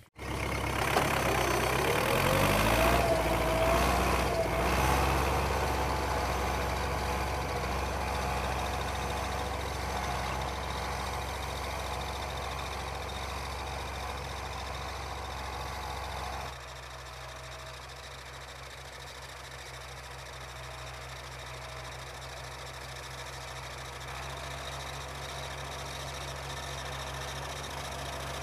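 Tractor engine running under load while pulling a duckfoot cultivator through a field, with the revs rising in the first few seconds. About halfway through the level drops suddenly and the engine is heard more distantly, running steadily.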